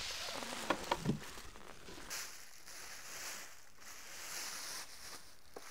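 Clear plastic wrapping crinkling and rustling as an electric unicycle is pulled out of its plastic bag, with a couple of light knocks about a second in.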